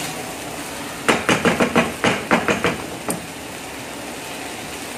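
Chicken sizzling as it sautés in a frying pan, stirred with a wooden spatula. About a second in comes a quick run of about ten knocks of the spatula against the pan, then one more knock shortly after.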